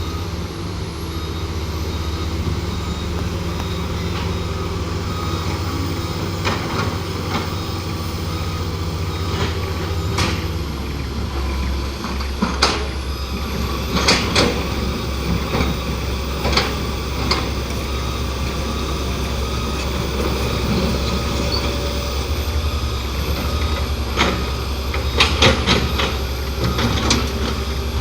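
Heavy diesel engine running steadily, its low note shifting about ten seconds in, with scattered sharp metallic clanks and knocks, several close together near the end.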